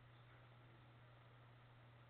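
Near silence: a faint steady low hum under light hiss.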